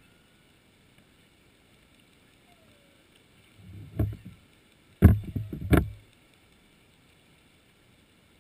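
Muffled knocking and rumbling picked up underwater, in two short bursts about four and five seconds in; the second burst is longer and holds several sharp knocks.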